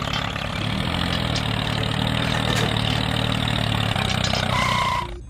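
Miniature toy tractor running steadily with a low, engine-like hum as it pulls a cultivator through sand. A brief high tone sounds near the end, and the sound cuts off suddenly.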